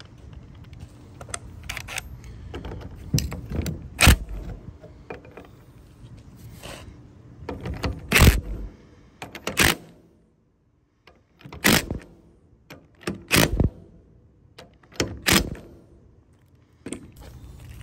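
Cordless impact wrench with a 22 mm socket running in about six short bursts, tightening the nut on a new tie rod end stud, with small metal clinks of tool handling between the bursts.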